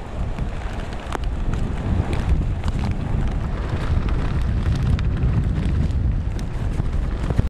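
Hurricane-force wind buffeting the microphone in a loud, steady low rumble, with rain and scattered sharp ticks of drops or debris striking. It cuts off suddenly at the end.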